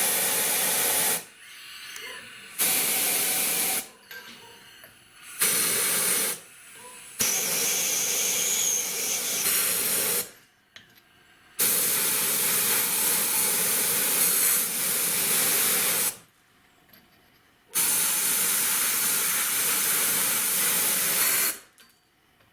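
Compressed air hissing from an air nozzle in about six bursts of one to four seconds, each cut off sharply.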